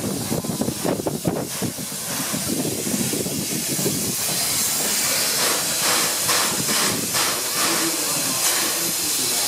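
C11 207, a JNR Class C11 2-6-4 tank steam locomotive, hissing steam from around its cylinders as it slowly turns on a turntable. Some low, uneven clatter comes first, and the steady hiss builds from about four seconds in.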